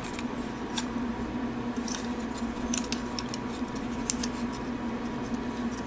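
Scattered small clicks and ticks of a die-cast and plastic transforming robot-dog figure's leg joints as its spider-style legs are unfolded by hand, over a steady low hum.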